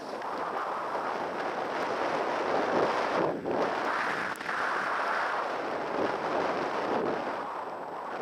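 Skis sliding and scraping over packed snow during a steady downhill run, mixed with wind rushing over the microphone. It eases off briefly a little over three seconds in.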